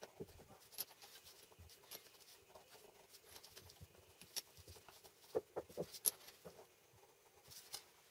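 Faint handling noises: light clicks, taps and scratches as small metal clamp parts are held, shifted and marked with a marker pen on a paper sheet, with a cluster of sharper clicks a little past halfway.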